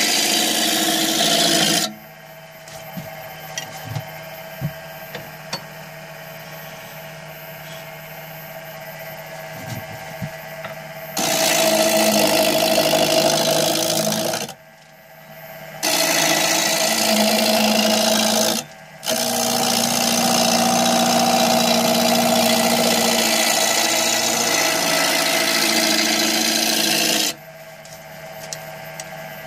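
Wood lathe running with a steady motor hum while a turning tool cuts a spinning wooden spindle, throwing shavings. The cutting comes in four loud bouts, the longest about eight seconds, with pauses in between where only the lathe's hum remains.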